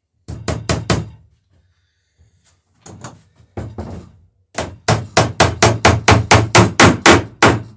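Hammer blows riveting the lapped planking of a wooden dory: a quick group of strikes, a few scattered ones, then a fast, even run of about fifteen blows, some five a second, which are the loudest.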